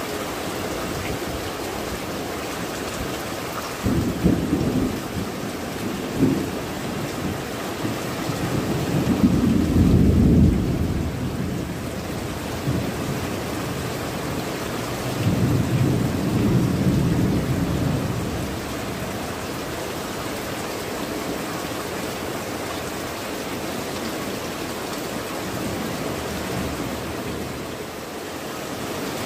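Heavy rain falling steadily on clay tile roofs and garden foliage, with thunder. Two sharp low rumbles come about four and six seconds in, and longer rolling rumbles follow around ten and sixteen seconds.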